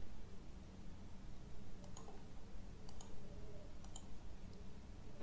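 A few faint computer mouse clicks, roughly a second apart, over quiet room tone.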